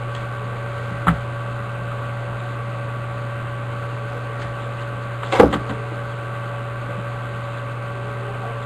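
Steady electrical mains hum with a few thin tones over it. A serrated knife cutting the seal of a cardboard trading-card box makes a short click about a second in and a louder brief crackle about five and a half seconds in.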